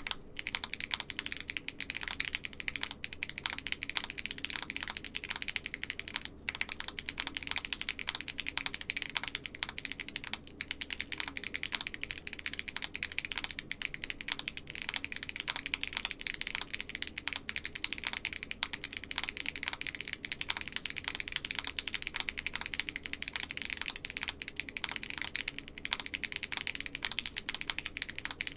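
Fast, continuous typing on a Keychron Q4 mechanical keyboard with Haimu x Geon HG White tactile switches and no foam dampening inside the case, the keystrokes clacking in quick succession with a couple of brief pauses.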